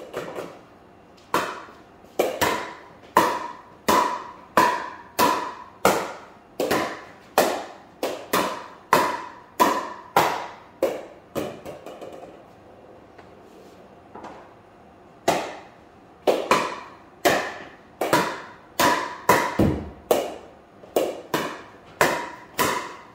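Pickleball paddle hitting a plastic pickleball over and over, a sharp hollow pock about every 0.8 seconds. The hits stop for about four seconds midway, then start again.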